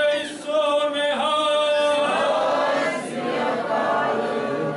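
A man's voice holding a long chanted call, with a group of voices joining in unison for the second half.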